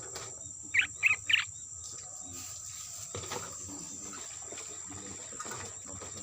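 Three quick, loud bird chirps from a sooty-headed bulbul about a second in, over a steady high insect drone.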